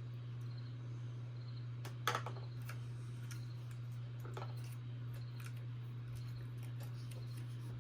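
Small plastic clicks and taps of fingers working a ribbon cable into a tiny connector that keeps popping the cable out, the sharpest click about two seconds in. A steady low hum runs underneath.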